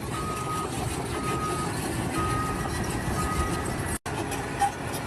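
Back-up alarm on a heavy vehicle beeping about once a second, four beeps that grow fainter, over the low rumble of its engine. The sound cuts off abruptly about four seconds in.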